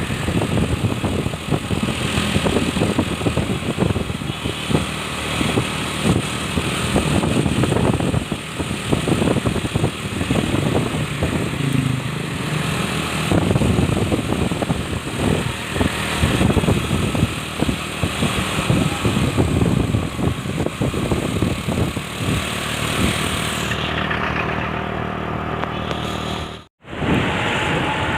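Truck engine running as the truck drives, mixed with road traffic noise. The sound is uneven and dense throughout and cuts out for a moment near the end.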